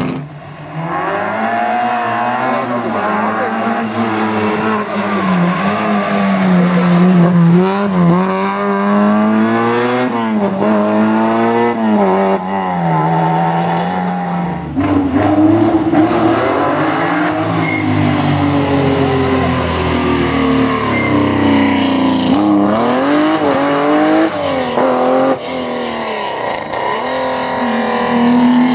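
Historic rally car engines driven hard, revving up and dropping back again and again as they accelerate, lift and change gear while passing. More than one car is heard in turn.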